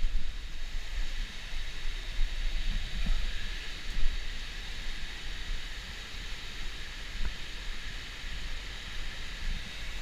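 Wind buffeting the microphone of a handheld camera, with a steady rush of water from a creek pouring over a waterfall behind it.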